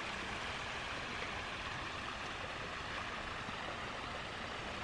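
A small, shallow stream running over stones, giving a steady trickling, rushing water sound.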